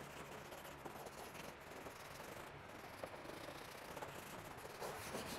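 Faint wet scrubbing of a car's black plastic bumper trim with a small detailing brush through foamy cleaner: a soft, steady rubbing with a few light ticks.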